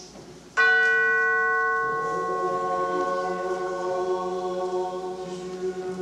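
A single chime, like a tubular bell, struck once about half a second in and ringing on, slowly fading. Under it a held chord sounds steadily.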